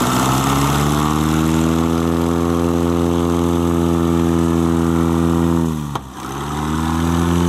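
Aviat Husky light aircraft's piston engine and propeller running at high power with a steady drone. The pitch sags and drops off sharply about six seconds in, then picks up again and eases off near the end.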